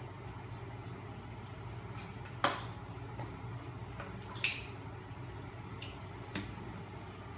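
Homemade magnet-motor rig driven by a small 12 V electric motor, running with a steady low hum. Two loud sharp clicks come about two seconds apart, followed by a few fainter ones.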